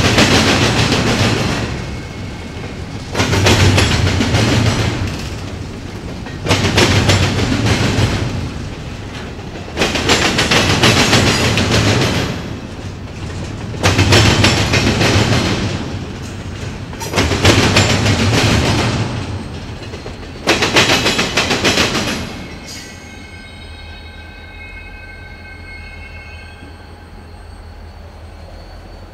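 Wheels of a double-stack container train banging over a railroad diamond crossing: a loud burst of clatter every three to four seconds as each car's trucks cross, seven times. The last car clears about 22 seconds in, leaving a fainter rumble and a faint high whine.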